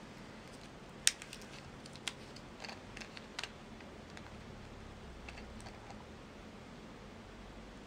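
Plastic screw cap being twisted open on a paper drink carton: a few short sharp clicks and ticks in the first few seconds, the loudest about a second in, then only faint handling.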